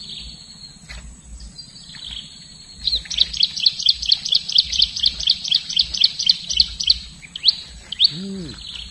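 A bird singing: a few drawn-out high whistles, then a loud, rapid series of chirps, about five a second, for some four seconds. Over it runs a steady high-pitched buzz.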